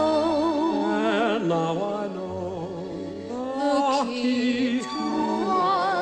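Background music: a romantic ballad sung with long, held notes and a strong vibrato.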